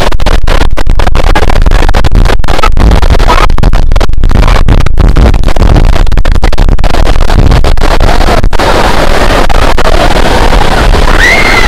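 Strong wind blowing on the microphone over breaking surf, a loud, steady rushing noise that drops out for split seconds again and again. Near the end a brief voice rises over it.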